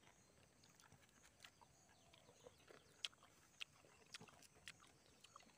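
Near silence: quiet outdoor background with a few faint, short clicks about three to four seconds in.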